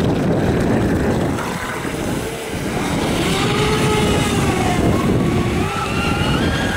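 Twin brushless electric motors of a carbon-fibre radio-controlled catamaran speedboat whining at speed over a low rushing noise. The whine comes in about a second and a half in, dips and swells with the throttle, and climbs in pitch near the end.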